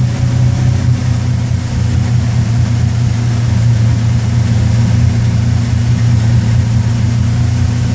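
MerCruiser 350 Mag V8 marine engine running steadily at low speed, an even, unchanging low drone.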